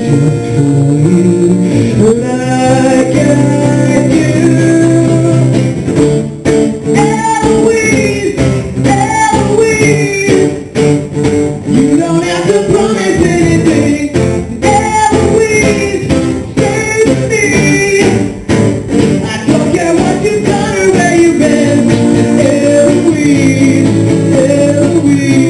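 Live acoustic performance: two acoustic guitars strummed and picked together, with a man singing the melody into a microphone.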